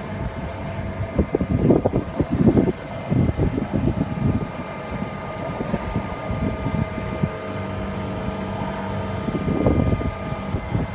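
Wastewater aeration tank with diffuser discs: air rising through the water, which churns and bubbles at the surface with irregular louder gurgling surges, over a steady mechanical hum.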